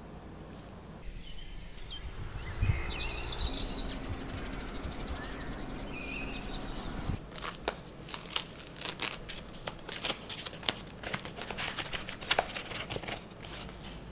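Thin paper wrapping crinkling and rustling in quick, irregular crackles as a drinking glass is unwrapped by hand, starting about halfway through. Before that, a few high bird chirps over a low hum.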